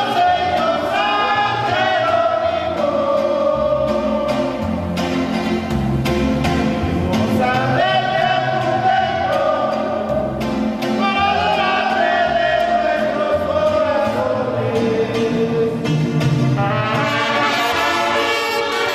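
Music with brass instruments carrying a melody over a bass line.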